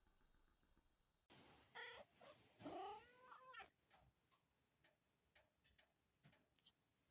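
Munchkin cat yawning aloud: a short squeak about two seconds in, then a longer, drawn-out yawn whose pitch rises and falls away, followed by a few faint mouth clicks.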